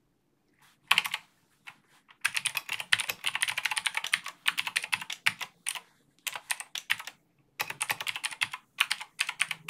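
Typing on a computer keyboard: quick runs of key clicks broken by short pauses, starting about a second in.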